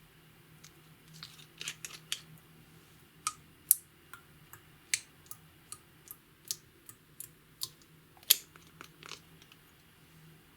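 Clear slime being pressed and stretched by hand, giving irregular sharp clicks and pops as air pockets burst, a few a second. The loudest pops come a little before 4 s and about 8 s in.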